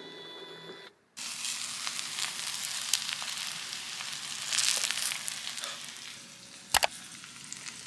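Rice crisping in a clay pot on a portable gas burner, sizzling and crackling steadily, while a spoon scrapes and lifts it from the pot. Near the end there is one sharp knock, the loudest sound. A brief steady hum comes before the sizzling starts, about a second in.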